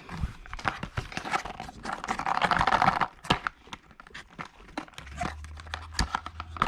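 Cube packaging being opened by hand: crinkling and tearing, densest about two to three seconds in, followed by scattered clicks and scrapes as the box's parts are handled.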